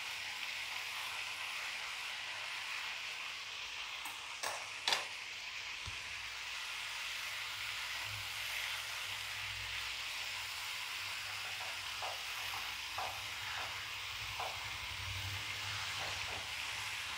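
Paneer slabs and onion-tomato masala sizzling steadily in a nonstick frying pan as they are turned, with a couple of sharp clicks about four to five seconds in and a few lighter ticks later.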